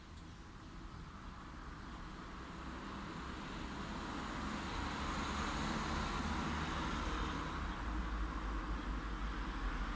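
A road vehicle passing, its tyre and engine noise swelling gradually over several seconds, with a deepening low rumble near the end.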